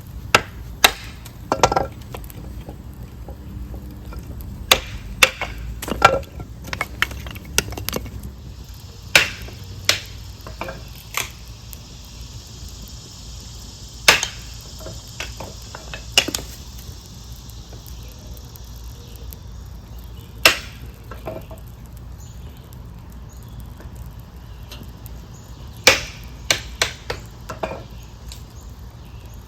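Scattered sharp knocks and cracks of wood pieces being handled or broken, more than a dozen at irregular intervals, with a soft hiss for several seconds midway.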